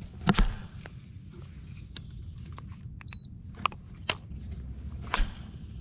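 Spinning reel and rod being handled while working a jerkbait: sharp clicks and knocks from the reel, the loudest a double knock near the start, over a low steady rumble. A brief high beep comes about three seconds in.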